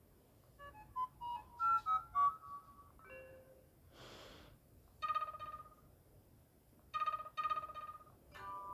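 Stock electronic tones from an S-TELL C552 Android phone's speaker. A quick melody of short beeps is followed by a brief whoosh about four seconds in, then a pulsing ring-like tone sounds three times and a last beep comes near the end.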